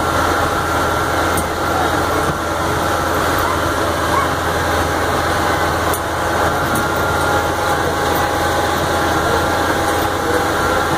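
Farm tractor's diesel engine running steadily while it tows a passenger wagon, heard from the wagon behind it as an even drone.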